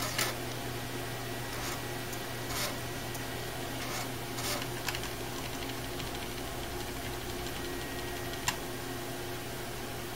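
Steady low hum of a Dell OptiPlex 390 desktop running as it boots, with a few faint keyboard key taps and one sharper tap about eight and a half seconds in.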